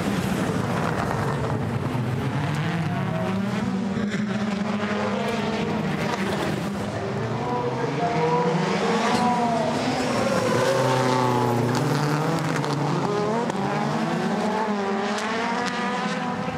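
Rallycross supercar engines at full race speed, two cars close together, their pitch repeatedly rising and dropping as they accelerate and shift through the gears.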